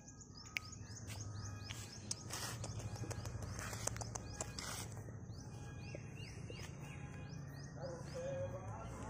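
Small birds chirping over and over in short, high, falling notes, over steady outdoor background noise and a low hum, with a few brief knocks.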